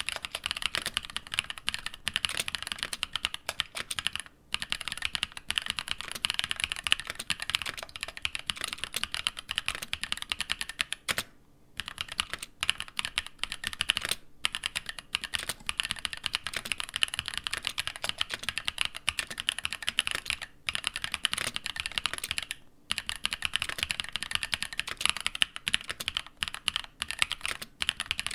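Mechanical keyboard being typed on fast and continuously, a dense run of keystroke clacks with a few short pauses.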